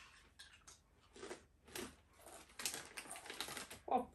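Crisps being crunched while eaten, a run of short irregular crackles, with the crisp packet rustling. A brief voice sound near the end.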